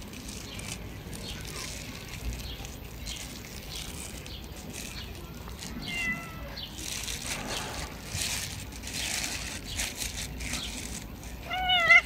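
A stray domestic cat meowing: one clear meow near the end that rises and then falls in pitch.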